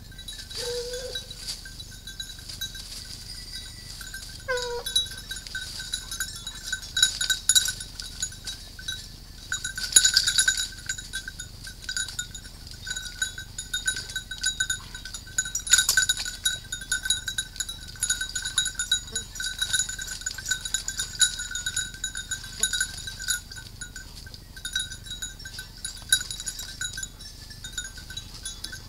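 Hunting dogs' collar bells ringing and jingling steadily as the dogs move and tug at a dead wild boar. Two short dog whines come near the start.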